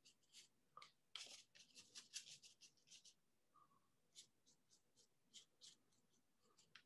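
Faint, short scratchy strokes of a small paintbrush on paper as branches are painted in, a quick run of them about a second in, then a few scattered strokes.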